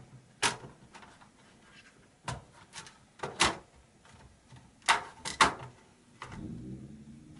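Plastic bottom access cover of a Dell Vostro 3560 laptop being set onto the chassis and pressed down by hand, giving a series of about seven sharp clicks and knocks as its edges and snap clips seat.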